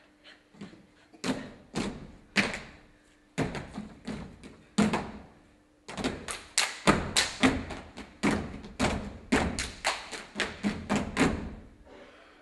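Dancers' body percussion: sharp thuds and slaps. They come in scattered groups at first, then from about six seconds in as a fast, even run of about four hits a second that stops shortly before the end.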